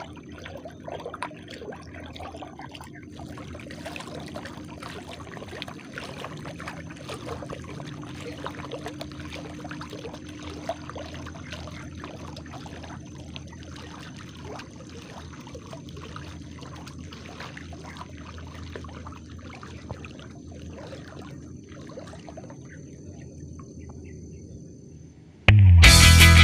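Shallow muddy floodwater splashing and trickling as a foot in a flip-flop wades through it. Loud guitar music cuts in suddenly near the end.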